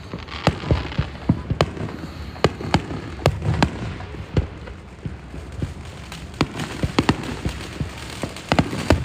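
A fireworks display: many sharp bangs in quick, irregular succession, with a low rumble between them.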